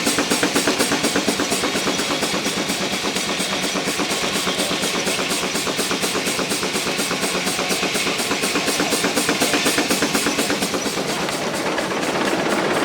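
Antique sawmill machinery running, a fast, even mechanical knocking of several beats a second over a steady clatter.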